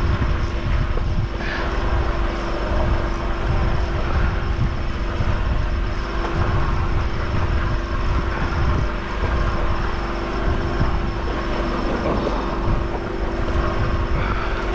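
An engine running steadily: a constant droning hum over a low rumble.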